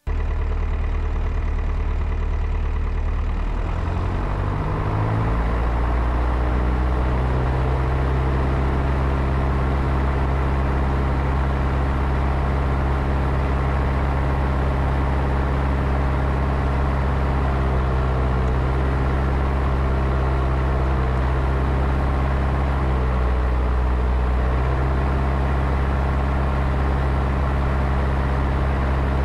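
Piper Cherokee's piston engine idling steadily while it warms up, heard from inside the cabin; its note shifts a little in the first few seconds, then settles.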